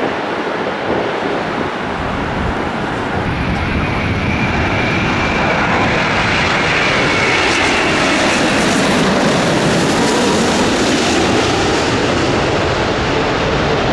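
Jet airliner passing, a steady rush of engine noise that grows louder a few seconds in, with a high whine for several seconds.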